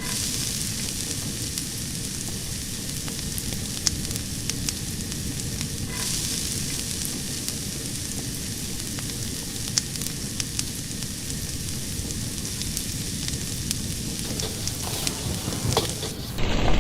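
Fire burning with a steady hiss and frequent sharp crackles and pops. Near the end it cuts abruptly to a louder, deeper rushing noise.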